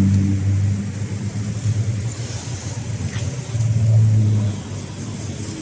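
Motor vehicle engine running close by, a low hum that swells near the start and again about four seconds in.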